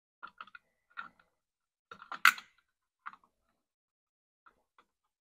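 Plastic cover being handled and fitted back over an air compressor's wiring: a string of small clicks and taps, with one sharp clack a little over two seconds in and a few faint ticks near the end.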